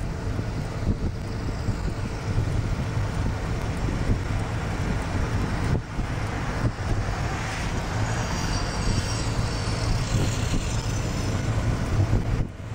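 Steady low rumble of a motor vehicle and road traffic with wind noise on the microphone, dropping out briefly about six seconds in and near the end.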